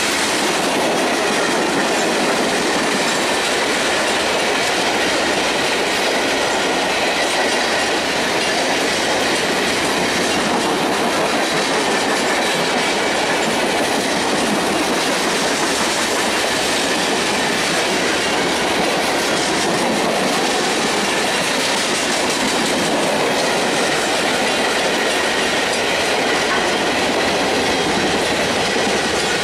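Freight cars (high-sided gondolas) rolling past close by, wheels clattering steadily over the rail joints with a faint high wheel squeal above the rumble.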